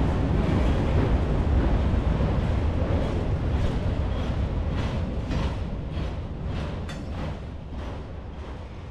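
Freight train rolling past: a steady low rumble with regular clacking of wheels over the rails, about two or three clacks a second, fading out through the second half.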